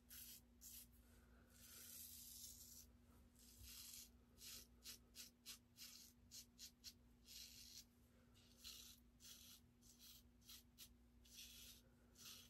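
Faint scraping of a stainless steel double-edge safety razor cutting lathered stubble, in repeated short strokes, a few a second in quick runs with some longer strokes between. This is a side pass, across the grain.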